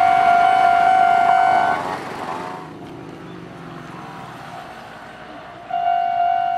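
Japanese level-crossing electronic warning sounder giving its steady melodic tone, cutting off about two seconds in as the crossing clears behind a passing train. A faint sound of the train moving away follows, and the warning tone starts again near the end as the crossing activates for another train.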